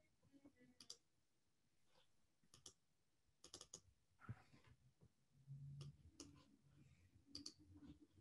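Faint clicks of a computer mouse, several coming in quick pairs or small clusters, over near silence.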